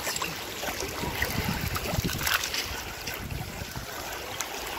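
Shallow sea water lapping and sloshing over rocks as a small dog wades through it, with a low rumble and a few small splashes and clicks scattered through.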